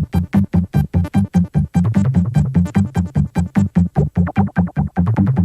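Background music: a fast electronic synthesizer track with a quick, even pulse of short bass notes.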